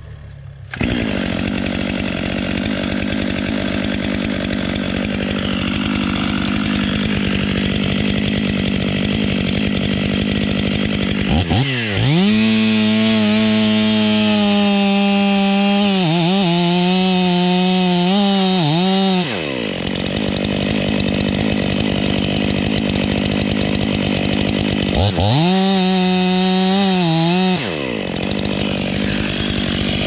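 Fuel-injected STIHL MS 500i two-stroke chainsaw idling, then revved to full throttle and cutting into a tree trunk for the notch: first for about eight seconds starting about 11 seconds in, then again for about three seconds near the end. The engine note sags briefly a couple of times as the chain bites into the wood.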